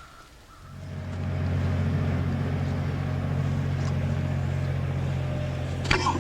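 A steady low motor hum, like an engine running, fades in under a second in and holds. A brief sharp sound comes just before the end.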